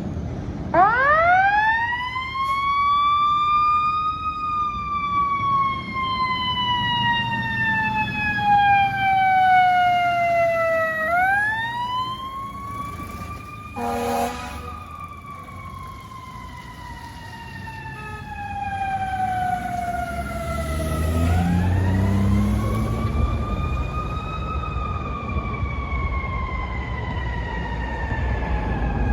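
Fire truck siren on a responding ladder truck, winding up fast and then slowly falling in pitch, three times over, with the truck's engine rumbling underneath. About halfway through there is a short blast.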